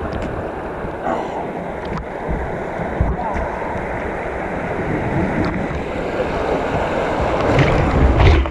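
Rushing white water around a kayak, with wind noise on the boat-mounted camera's microphone. The water grows louder near the end as the kayak runs into the rapids.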